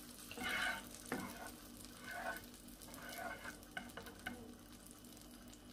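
Butter sizzling as it melts and foams in a non-stick frying pan, with a spatula stirring and scraping it around the pan in a few strokes and tapping the pan lightly a few times.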